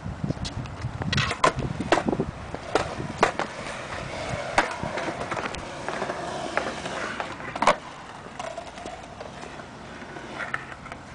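Skateboard wheels rolling on concrete, with a series of sharp clacks of the board striking the ground; the loudest clack comes near the end.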